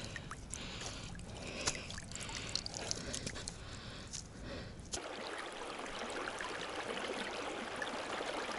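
Faint scattered clicks and light splashing at the water's edge. About five seconds in, this changes suddenly to the steady rushing of a small, shallow stream running over debris.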